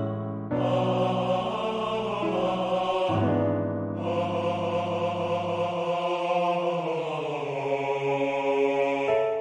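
Classical tenor voice singing two long, sustained phrases with vibrato over piano accompaniment, with a short breath between them.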